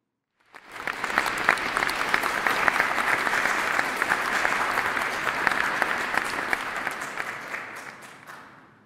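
Audience applauding: dense clapping that starts about half a second in and dies away near the end with a few last separate claps.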